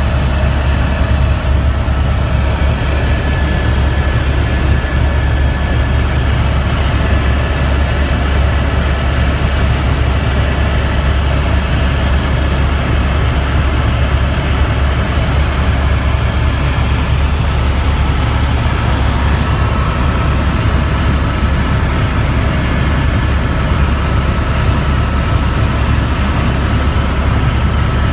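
Helicopter running with a steady, loud low drone from rotor and engine, with faint steady high-pitched whines above it.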